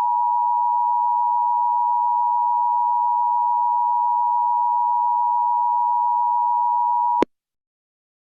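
Emergency alert attention tone: a loud, steady electronic tone of two close pitches that cuts off abruptly about seven seconds in, leaving silence.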